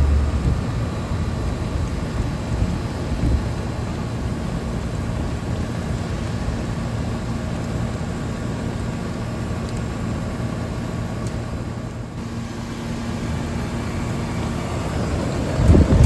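1990 York Stellar air conditioner's condensing unit running steadily: its three-phase reciprocating compressor hums with a few steady tones under the condenser fan, with rain falling. Near the end a louder rush of air rises as the fan's discharge blows across the microphone.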